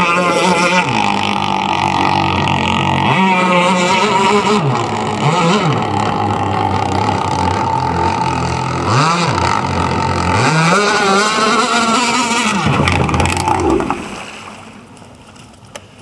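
Zenoah two-stroke gas engine of an MHZ Drambuie on Ice RC boat running at high revs. Its pitch dips and climbs back several times as the throttle is eased off and opened again, then drops away sharply near the end.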